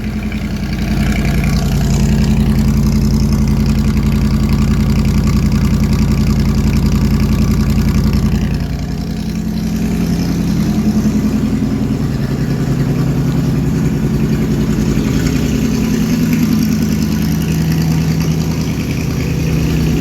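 1971 Chevy C10's carbureted 350 V8 running on a cold start after sitting for months, a steady fast idle. About eight seconds in it drops a little in level, then its pitch wavers up and down.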